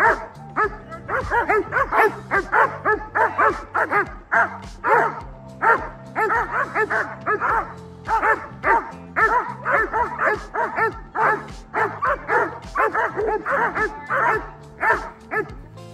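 Dogs barking and yipping in quick succession, several high barks a second with hardly a pause, over background music with a steady bass line.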